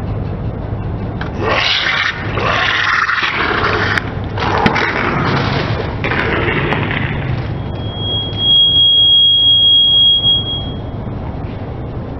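Car tyre rolling over plastic tubes of body lotion, crushing and bursting them in several noisy bursts as the lotion squirts out, over a low steady hum. Later a steady high whistle-like tone sounds for about three seconds and is the loudest thing heard.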